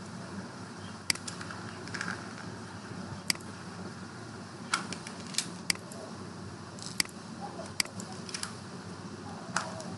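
Computer mouse clicking, about eight sharp, irregular clicks over a steady low room hum.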